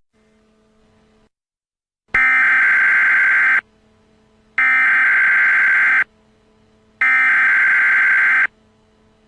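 Alarm buzzer blaring three times, each blast about a second and a half long with about a second between them.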